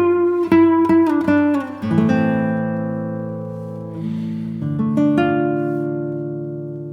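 Instrumental music on a plucked string instrument: a run of quick notes for about two seconds, then held chords that ring and slowly fade, with a new chord struck about five seconds in.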